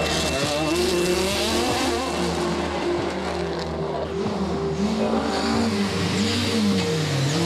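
Race car engines accelerating hard up a hill-climb course through a hairpin. The engine pitch climbs, drops and rises again with gear changes and throttle lifts, wavering up and down in the last couple of seconds.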